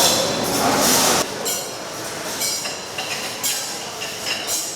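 Restaurant dining-room noise: a steady clatter and hubbub with clinks of dishes and cutlery, louder for about the first second and then quieter.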